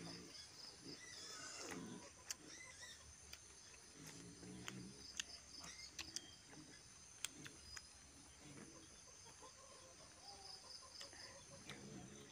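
Quiet, close-up chewing and lip-smacking of people eating roast pork with their hands, with scattered sharp wet mouth clicks.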